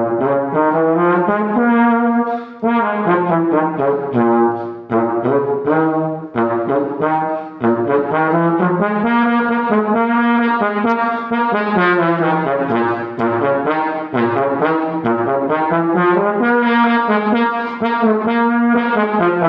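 Trombone playing free runs up and down a B-flat pentatonic scale, note after note with short breaks between phrases. Some air can be heard escaping in the tone, which the player puts down to an embouchure not yet warmed up.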